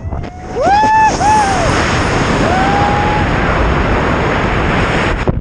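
Loud rushing freefall wind buffeting the helmet camera's microphone as the jumper falls away from the paraglider. A few high whooping shouts rise and fall over the rush in the first three seconds.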